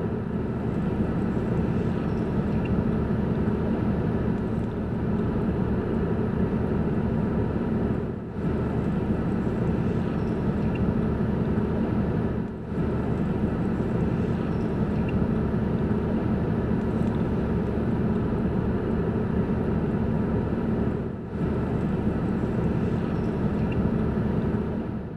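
Steady low traffic noise of car engines running in a slow-moving jam, briefly dipping three times.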